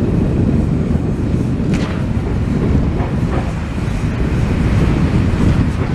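Wind buffeting the microphone: a loud, steady, gusting low rumble, with a faint knock about two seconds in.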